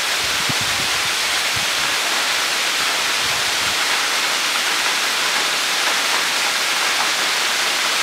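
Small waterfall pouring in two thin streams off a rock ledge and splashing onto rocks and a shallow pool below: a steady, even hiss of falling water.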